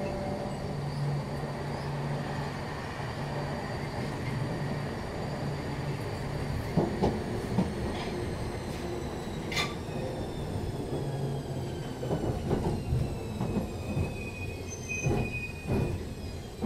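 London Underground 1972 Stock train running, heard from inside the car: steady wheel and rail noise under a low hum, with a faint high whine that slowly falls in pitch. Sharp clicks and knocks from the wheels on the track come more often in the second half.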